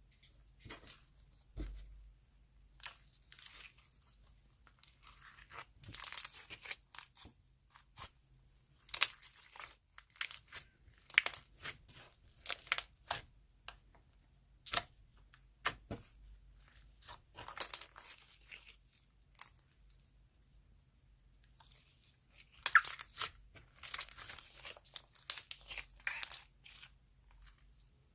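Soft clay slime being squeezed, stretched and pulled apart by hand: several rounds of crackly tearing and popping sounds with short quiet pauses between them.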